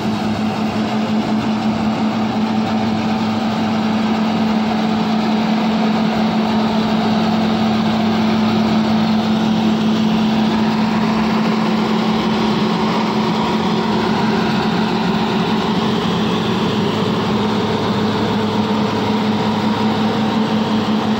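New Holland TC56 combine harvester running steadily while harvesting rice: a loud, even drone of engine and threshing machinery with a strong low hum.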